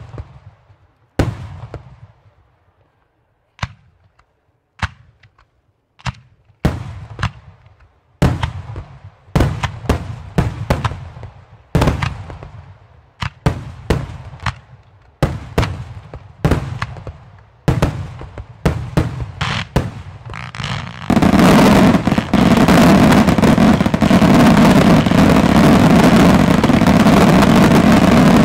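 Professional display fireworks: aerial shells bursting in sharp bangs, each followed by a fading echo. The bangs start a second or more apart and come faster and faster. About three quarters of the way through, a massive finale barrage goes off all at once and merges into a continuous loud crackling rush.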